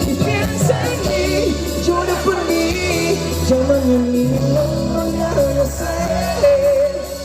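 Music with a singing voice: a held, wavering melody over a repeating bass line.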